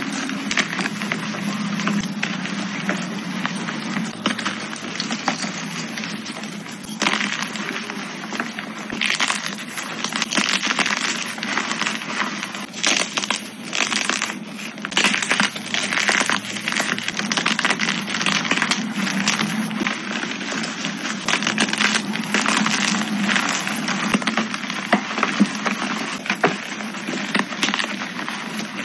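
Dyed gym chalk blocks crushed and crumbled by hand into powder: a steady run of crunching and crackling with many small sharp snaps.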